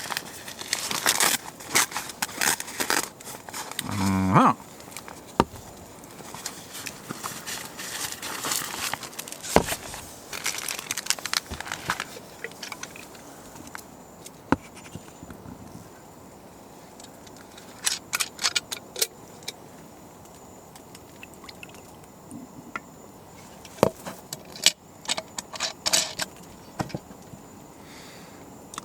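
Rummaging through camping gear by hand: rustling, clinking and knocking of handled objects, with a short rising squeak about four seconds in, then scattered clicks and clinks.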